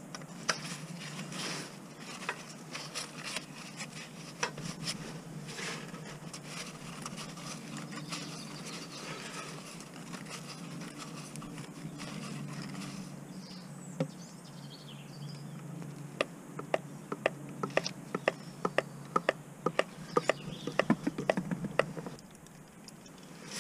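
Light tool scraping and tapping under the car, then oil dripping into a drain pan. The drips quicken into a rapid, irregular patter of sharp ticks and give way near the end to a softer, steady pouring stream as the gearbox oil drains. A low steady hum runs underneath.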